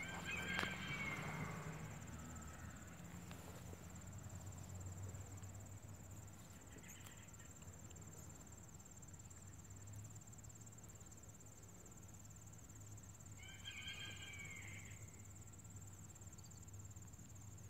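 Crickets trilling steadily in a faint, high, unbroken chorus. Two short pitched calls sound over it, about a second in and again about fourteen seconds in.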